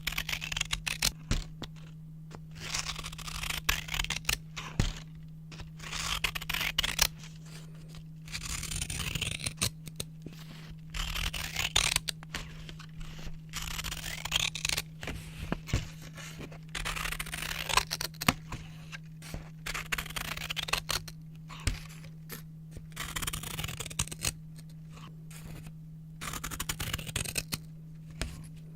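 Scissors cutting brown paper close up: a run of crisp snipping and slicing strokes through the paper, in spells of a second or two with brief pauses between them.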